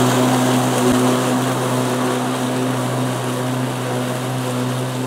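PowerSmart 80V 26-inch dual-blade cordless electric lawn mower running and cutting grass: a steady electric motor hum with the whir of its spinning blades, fading slightly as it moves away.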